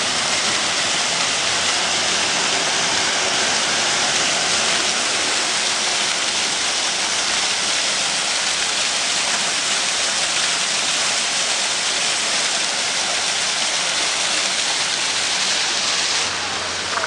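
Tiered stone fountain splashing, its jets falling into the basin in a steady, loud rush of water. The sound drops slightly near the end.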